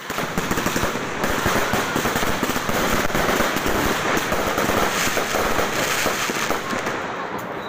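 Ground-launched fireworks firing shot after shot and bursting overhead: a rapid, dense run of pops and crackles, easing a little near the end.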